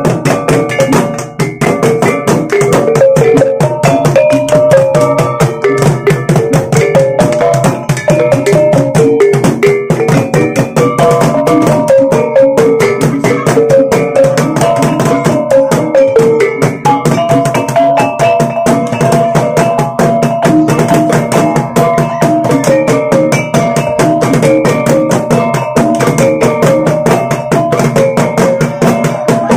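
Bajau bertitik ensemble playing: a fast, dense stream of stick strokes on tall gendang drums under a running melody rung out on a kulintangan, a row of small bossed gongs struck with wooden beaters.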